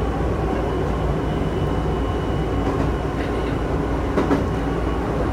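Chichibu Railway electric train running along the track: a steady rumble, with a few wheel clicks over rail joints about three and four seconds in.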